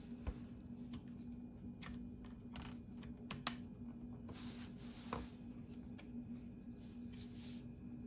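Small sharp clicks and taps with a few short scrapes as hands handle and seat a metal hard-drive caddy in an open laptop's chassis. The loudest click comes about three and a half seconds in, over a steady low hum.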